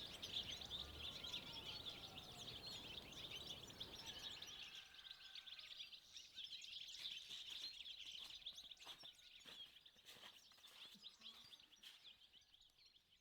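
Small birds chirping together in a dense, faint chorus, with a few whistled calls early on, fading out near the end.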